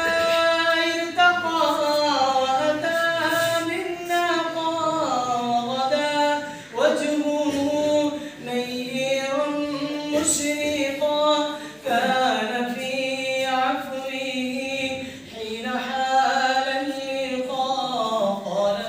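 A man singing an Arabic naat solo and unaccompanied, in long held, ornamented phrases, some sliding down in pitch at their ends.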